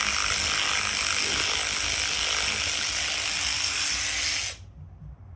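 A power ratchet runs steadily at full speed on a bolt of a Harley-Davidson Milwaukee-Eight engine, then stops abruptly about four and a half seconds in.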